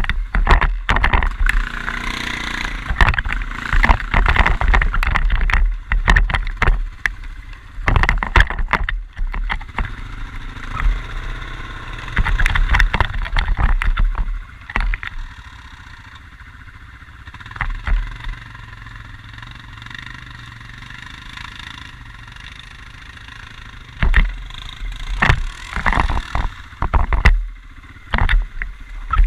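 Quad bike (ATV) engine running, with many sharp knocks and rattles over it. For a stretch past the middle it runs quieter and steadier, then the knocks return.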